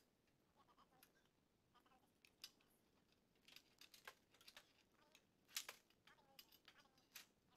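Near silence broken by faint scattered metallic clicks and taps, the sharpest about five and a half seconds in: a wrench and hands working the bolt that holds a power steering pump to its bracket.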